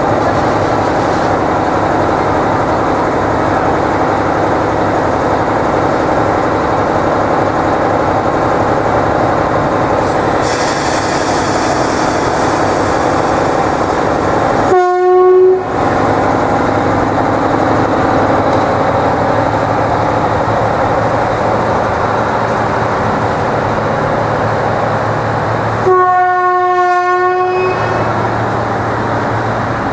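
Diesel shunting locomotive running steadily close by, its horn sounded twice: a short blast about halfway through and a longer one near the end. A hiss comes in about a third of the way through.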